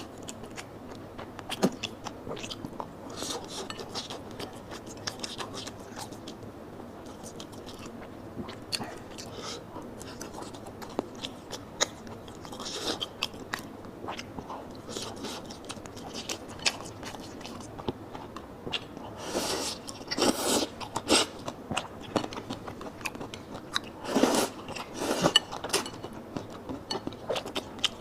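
Close-miked eating: a person chewing rice noodles and soup dumplings, with many small wet clicks of the mouth and a few louder, longer bursts about two-thirds of the way through.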